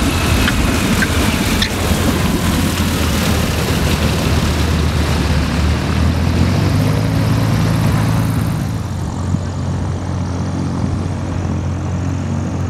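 Yak-54's nine-cylinder M-14P radial engine and propeller running steadily. About eight and a half seconds in the sound turns duller and a little quieter.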